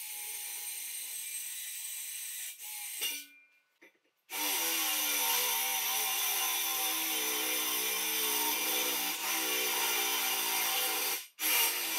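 Power tool working, likely on metal: a hissy stretch, a brief pause, then the tool running steadily at an even pitch for about seven seconds before it cuts off suddenly.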